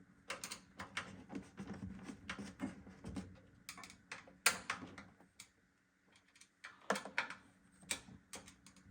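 Irregular light clicks and plastic knocks of power-supply cables and their connectors being handled and fitted in a PC case, with a short lull a little past the middle.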